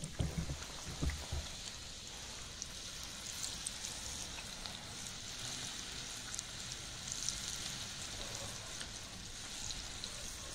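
Battered pieces deep-frying in a pan of hot oil over a wood fire: a steady sizzle full of fine crackling pops, with a few low knocks in the first second or so.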